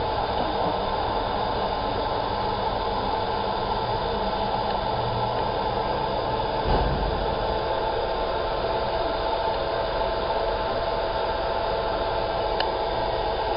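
Laser marking machine running mid-job: a steady, even rushing noise with a faint steady whine, and a short knock about seven seconds in.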